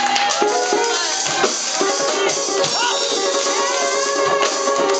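Live gospel praise music from a church band, with instruments playing and a voice over it.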